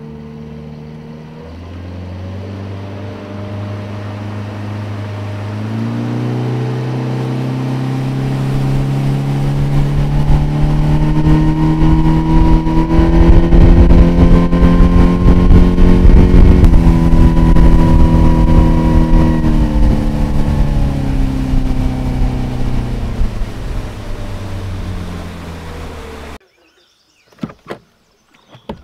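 Fishing boat's outboard motor running under way, throttling up in steps over the first several seconds, then a loud rushing rumble at speed. It throttles back with the pitch falling, and the sound cuts off abruptly near the end.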